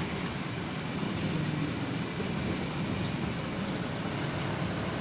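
Engine and road noise inside a moving single-deck bus, steady throughout, with a thin high whine above it and a couple of faint clicks at the start.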